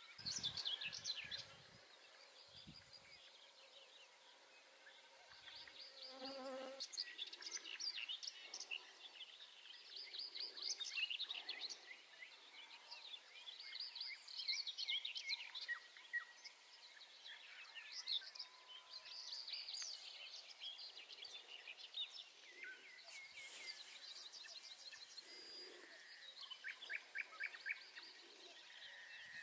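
Many songbirds singing and calling over one another: rapid chirps, trills and whistles, with a faint thin whine of mosquitoes.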